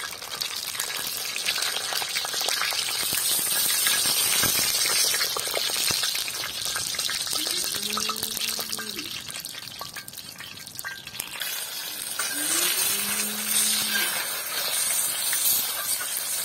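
Eggplants frying in hot oil on a black iron saj griddle over a wood fire: a steady sizzle and crackle, swelling louder twice as the skimmer ladle works them.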